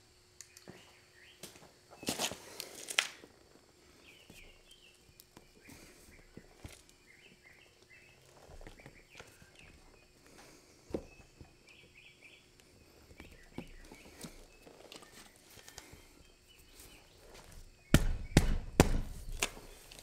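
A few faint knocks and scrapes of handling, then near the end a run of loud, rough rasping strokes as a spiral reamer on a T-handle is worked in and out of a puncture in a zero-turn mower's rubber tire tread, roughing out the hole to take a plug.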